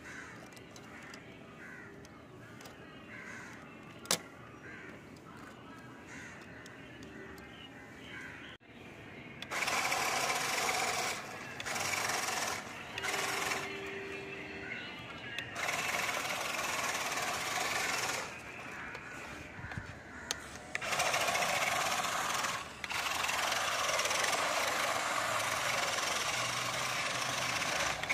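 A six-wheel toy RC monster truck's electric drive motors and gearing whirring in stop-start bursts of one to several seconds as it tows a log-laden trolley over paving stones, with its tyres and the trolley's wheels rolling on the stone. Before the driving starts about a third of the way in, it is quieter, with a single sharp click.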